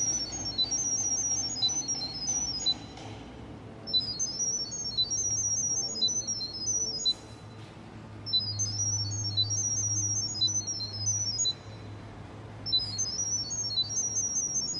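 Rapid sequences of short, high electronic beeping tones stepping between pitches. They come in runs of about three seconds, four times, during Wi-Fi pairing of a wireless security camera. These are the kind of sound-wave pairing tones a phone plays to pass the Wi-Fi details to the camera.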